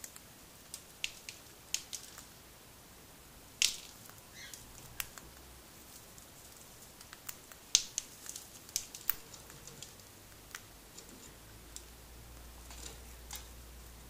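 Cockatiel pecking at a millet spray, its beak cracking and husking the millet seeds in scattered, irregular sharp clicks.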